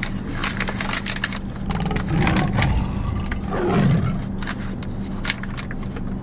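Paper burger wrapper crinkling and rustling as a burger is bitten into and chewed, over the steady low hum of a car running. Two muffled low murmurs come about two and four seconds in.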